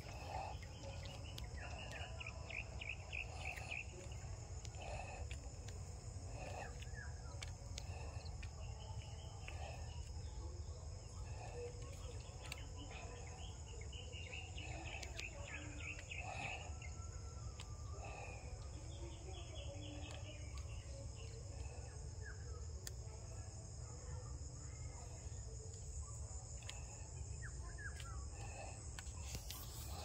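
Steady high-pitched chorus of insects, unbroken throughout, with scattered short chirps and a low rumble beneath.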